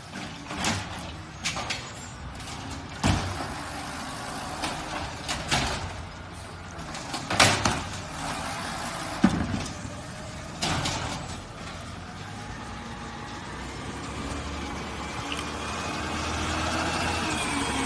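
Garbage truck at work: a series of sharp metal bangs and clanks over the running engine, then the engine rising in pitch over the last few seconds.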